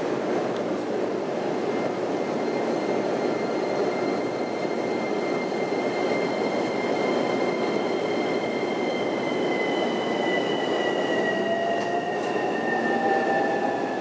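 Interior of an electric train car pulling out of a station: steady running rumble with a high electric whine from the traction motors that drifts slightly lower, and a lower whine that rises in pitch near the end as the train picks up speed.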